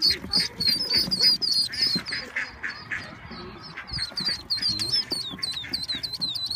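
A brood of ducklings peeping: many quick, high-pitched peeps overlapping, thinning out for a moment about halfway through.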